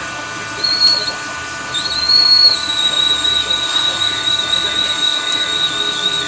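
High-pitched whistling squeal from a cut on a manual metal lathe. It sounds first briefly, then again from about two seconds in, held with a slight waver, over the steady hum of the running machine.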